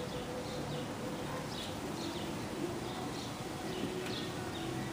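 Small birds chirping outdoors: short, high, downward-sliding chirps repeating about once or twice a second over a steady background hiss, with a faint low steady hum underneath.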